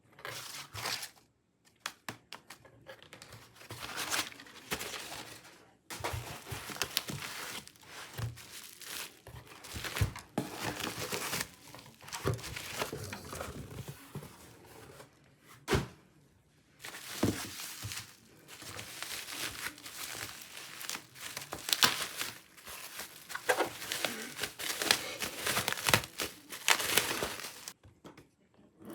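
Packaging being unwrapped by hand: plastic and paper crinkling and tearing in runs of crackling rustles, broken by short pauses and a few sharp clicks.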